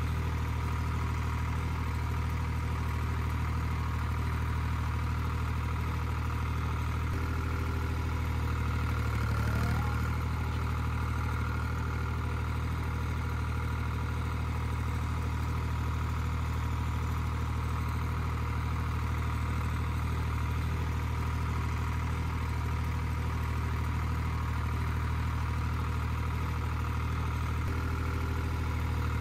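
Lamborghini tractor's diesel engine running at a steady speed while it pulls a rear flail mower through grass, with a brief swell about ten seconds in.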